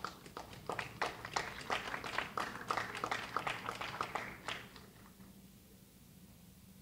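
Scattered applause from a handful of people, with separate hand claps audible, dying away about five seconds in.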